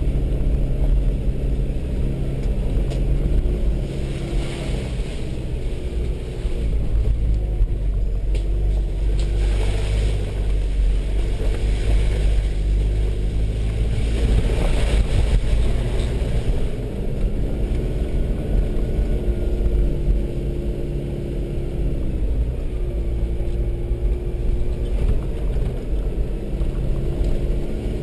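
Vehicle engine running at low speed, heard from inside the cab, with a heavy low rumble as it drives over a rough dirt track. The engine note steps up and down in pitch several times, and a few short bursts of hiss come and go.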